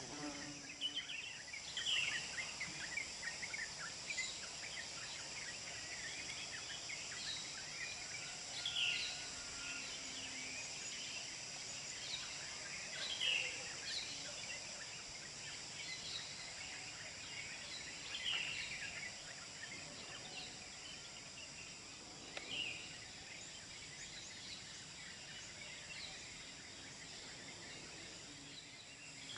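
Outdoor ambience of birds and insects: a steady high insect drone, with a bird giving short, falling calls every four to five seconds and softer chirps between them.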